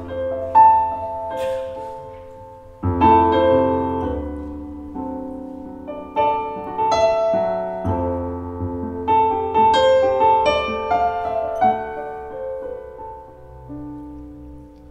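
Korg stage keyboard on a piano sound playing a slow solo introduction to a song: chords over a low bass note, struck every two to three seconds, with single melody notes above, the last chord fading near the end.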